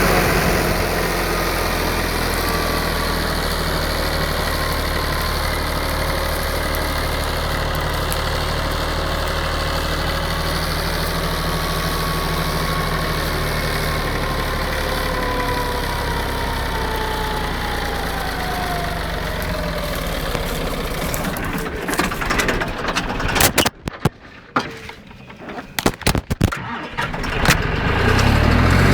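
John Deere tractor engine running steadily, then about three-quarters of the way through it coughs and stumbles in uneven bursts, nearly dying, before it catches and runs steadily again near the end.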